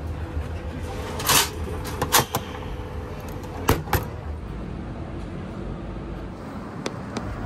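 Vending machine working: a steady low hum under four sharp mechanical clunks in the first half, then two faint clicks near the end.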